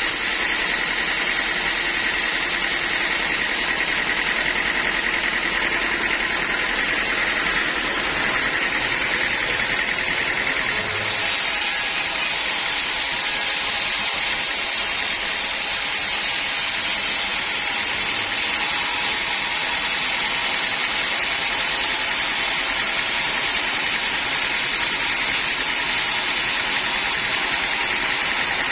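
Band sawmill running steadily and sawing through a teak log, a loud continuous mechanical whir with blade hiss. About eleven seconds in, the sound turns hissier and brighter.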